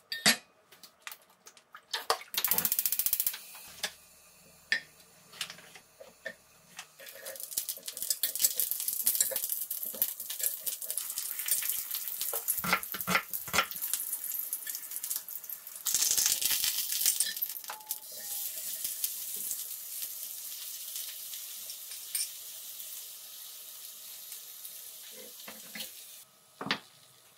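Burger patties and sliced vegetables sizzling in a square grill pan, with a steady hiss and two louder surges of sizzling, one near the start and one about halfway. Short clicks and knocks of utensils against the pan are scattered throughout.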